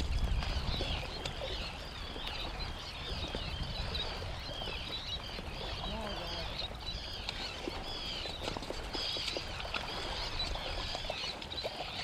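A flock of seabirds calling constantly over a sand eel blitz, many overlapping high-pitched chirping calls.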